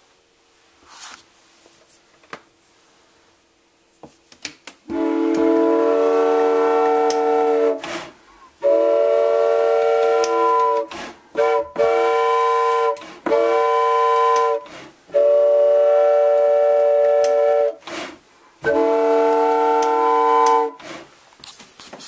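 Bellows-blown train whistle made of several flute pipes, sounding a steady chord of several notes at once in about seven blasts, long ones of two to three seconds mixed with a few short ones. A few clicks and knocks of the mechanism come just before the first blast.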